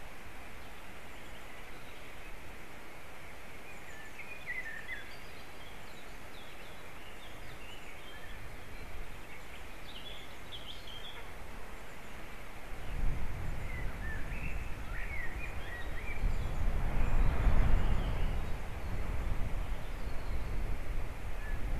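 Outdoor treetop ambience with scattered short, high bird chirps. About halfway through, wind starts buffeting the microphone with a low rumble and a rushing sound, strongest a few seconds before the end.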